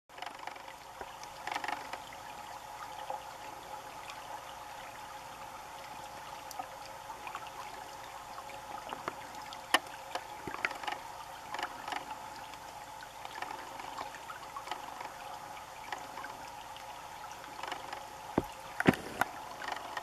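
Shallow creek water running steadily over its bed, with scattered sharp ticks and small splashes. The loudest cluster comes just before the end.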